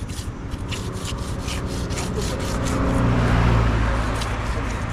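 A knife scraping and cutting a rohu carp, making repeated short rasping strokes about two to three a second that thin out partway through. A low engine hum swells and fades about three seconds in.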